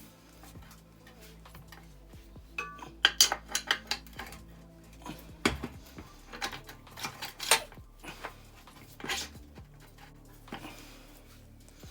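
Sharp metal clinks and clanks of motorcycle swing arm parts and hardware being handled and fitted, in a quick cluster about three seconds in and scattered strikes after.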